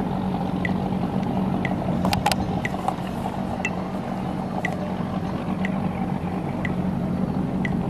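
A race start countdown timer beeping once a second, with short high beeps over a steady low hum. A couple of sharp clicks come about two seconds in.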